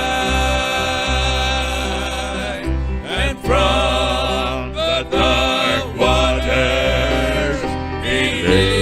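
Gospel hymn played on instruments, with wavering held notes that sound like singing over a steady low bass.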